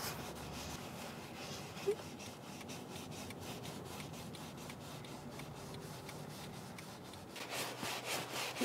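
Faint, steady hum and hiss inside a moving car's cabin, with one brief short sound about two seconds in.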